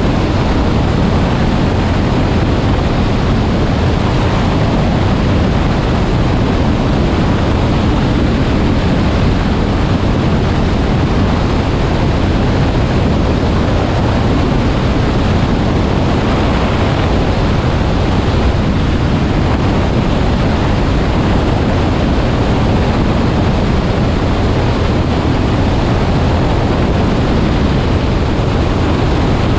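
Loud, steady rush of airflow and wind buffeting the microphone of a small airplane in flight, climbing out after takeoff.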